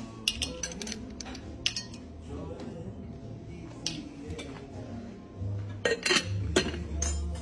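Metal tongs clicking against a glass bowl and clattering among hard chocolate buttons as they are picked out and dropped into a drinking glass, in a run of short, irregular clinks. A few louder clinks come near the end.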